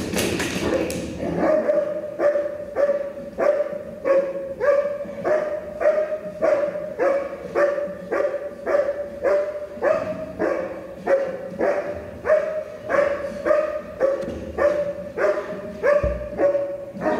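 A shepherd-type dog on a tether barks steadily and aggressively, about two barks a second, at a handler who is provoking it in agitation (protection) training.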